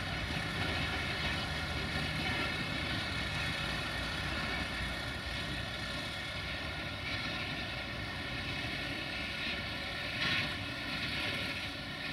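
Freight train of grain hopper wagons rolling slowly by, hauled by a 060-DA (LDE2100) diesel-electric locomotive: a steady engine drone with wheel and rail noise, and a brief clank about ten seconds in.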